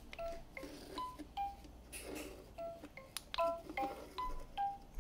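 LEGO Mario and Luigi interactive figures playing a string of short electronic beeps that jump between pitches, about a dozen in all. Sharp plastic clicks from the figures being handled fall between the beeps.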